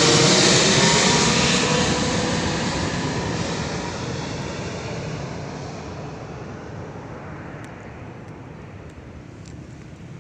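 Airplane passing low overhead and flying away, its engine noise loud at first and fading steadily.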